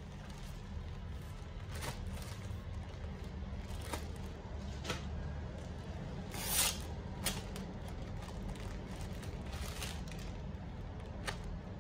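Plastic packaging crinkling and crackling as hands open a plastic courier mailer and pull a pair of jeans out of a clear plastic bag. The crackles come in short, scattered bursts, the loudest about six and a half seconds in, over a low steady hum.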